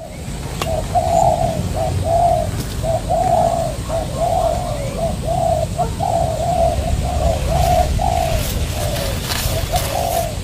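Spotted dove cooing: a long run of short, arched coo notes, about two a second, over a low rumble.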